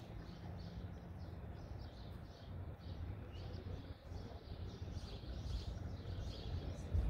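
Small birds chirping: many short, repeated high calls, over a steady low rumble.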